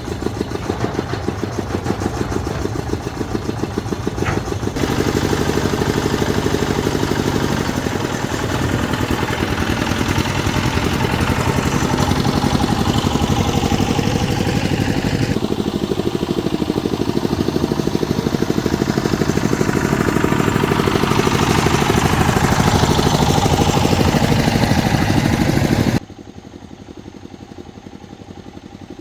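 A motor running with a fast, even pulse; the sound changes abruptly twice and drops suddenly to a much quieter machine sound near the end.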